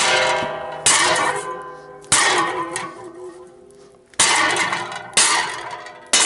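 Hammer blows on a steel socket, heated with a propane torch, to drive it onto a machined steel piece. There are about six hard metallic strikes, irregularly about a second apart, each ringing on afterwards with a clear metallic tone.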